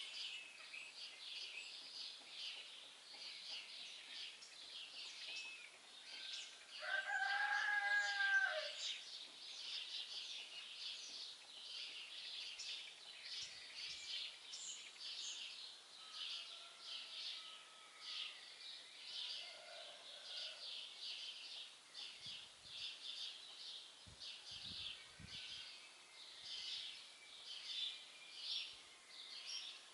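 A dense chorus of small songbirds chirping and singing without a break. About seven seconds in, one louder, drawn-out call with a rising-then-falling pitch lasts nearly two seconds.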